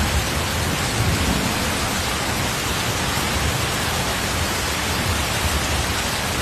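Heavy tropical downpour: rain falling hard on a flooded street, a dense steady hiss with a low rumble underneath.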